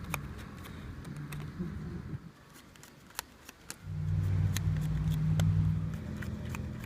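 A motor vehicle's engine passing by, its low hum swelling for about two seconds past the middle and then fading, with scattered small clicks.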